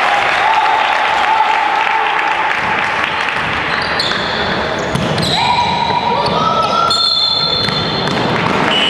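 Sounds of an indoor basketball game: the ball bouncing on the court with players' and spectators' voices calling out, echoing in the hall.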